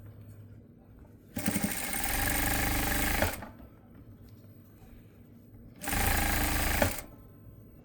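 Electric sewing machine running in two bursts of stitching, the first about two seconds long and the second about one second, with quiet pauses between them.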